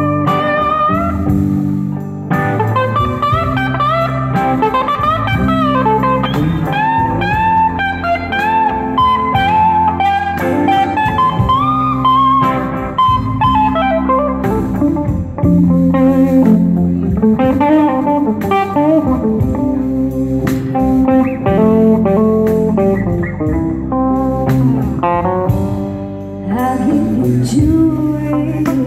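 Live band playing an instrumental passage: an electric guitar lead line with bending, wavering notes over bass guitar, drums and keyboard.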